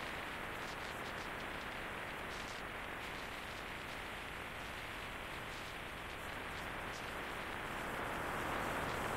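Steady wind and road rush on the microphone of a moving motorcycle, with no engine note standing out; it gets a little louder near the end.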